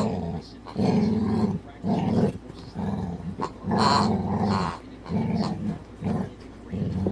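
Dog growling softly at its noisy pig toy, in a series of short low growls with brief pauses between them.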